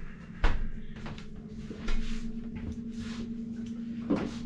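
Sharp knocks and clatter of first-aid supplies being handled at a table, the loudest about half a second in, over a steady low hum.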